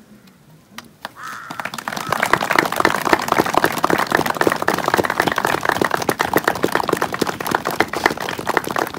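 A group of people clapping: it starts about a second in and builds quickly into dense, steady applause.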